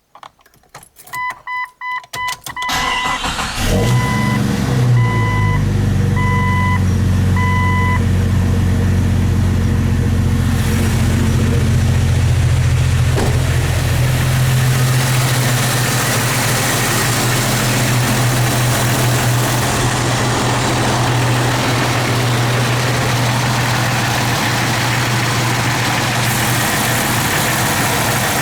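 Jeep Cherokee XJ engine cranked by the starter for a couple of seconds, catching and settling into a steady idle, while a dashboard warning chime beeps repeatedly for the first several seconds. At idle the engine has a knock whose cause the owner has not found; a new exhaust manifold and tightened flex plate to torque converter bolts helped only a little.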